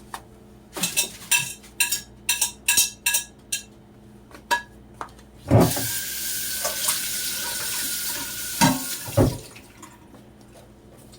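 Dishes and utensils clinking several times, then a kitchen tap running into the sink for about three seconds, followed by a couple more knocks.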